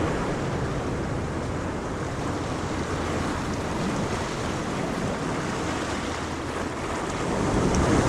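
Ocean waves washing onto a beach, a steady surf rush that swells again near the end.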